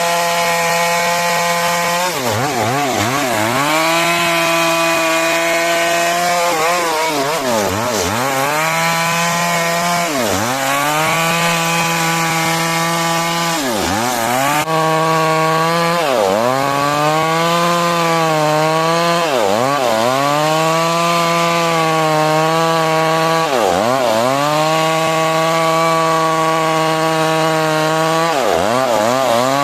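Stihl MS 382 two-stroke chainsaw at high revs, ripping lengthwise through a large trembesi log. Its pitch drops sharply and recovers about ten times as the chain bogs down in the cut and frees again.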